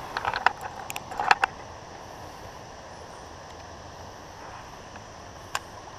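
A quick run of sharp clicks and ticks from a fishing reel and rod being worked for a cast in the first second and a half, with one more click near the end, over a steady hiss of the flowing creek.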